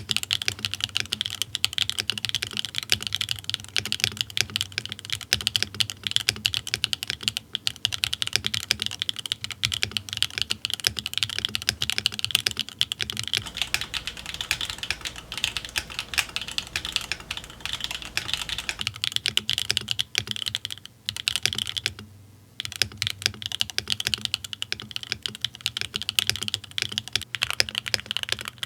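Fast continuous typing on a Bakeneko65 mechanical keyboard with SWK Catmint switches on an aluminium plate and GMK Tuzi clone keycaps, stock with a tape mod: a dense stream of keystroke clacks with a brief pause a little past two-thirds of the way through.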